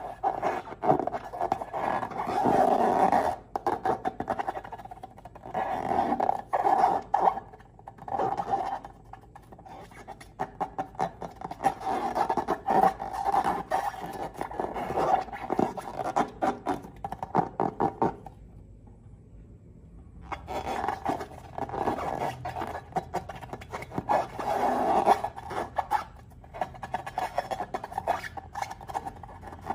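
Hands working slime and rubber balloons: a dense run of sticky clicks and crackles with squeaky rubbing, in stretches with a short pause about two thirds of the way in.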